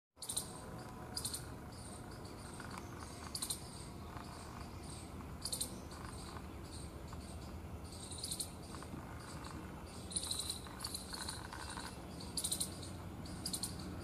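Outdoor ambience: short, high-pitched trilled chirps every second or two over a steady low rumble, with a few fainter mid-pitched notes.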